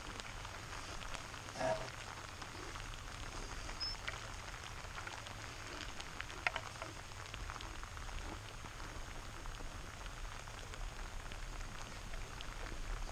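Moderate to heavy rain falling steadily, with scattered drop ticks and two brief louder sounds, about two and six and a half seconds in.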